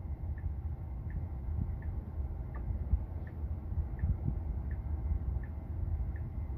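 Tesla turn-signal indicator ticking evenly, about once every 0.7 seconds, over the low rumble of road noise inside the car's cabin.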